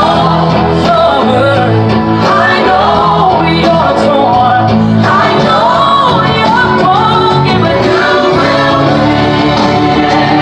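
Gospel worship music with singing over a steady instrumental backing.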